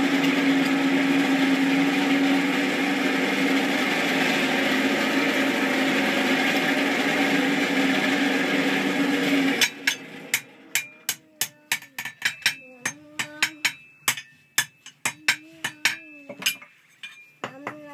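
A forge blower runs steadily with a strong hum feeding air to the charcoal fire, then cuts off abruptly about ten seconds in. A blacksmith's hammer then strikes metal on the anvil in quick, irregular blows, each with a bright ring.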